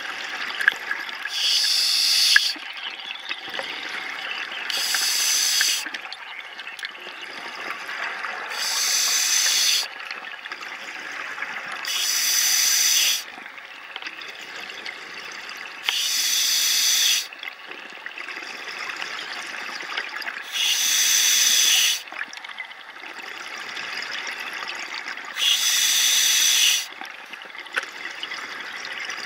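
Scuba diver breathing through an open-circuit regulator underwater, in a steady rhythm of about one breath every four seconds. Each cycle has a short, bright hiss followed by a longer, quieter stretch of bubbling.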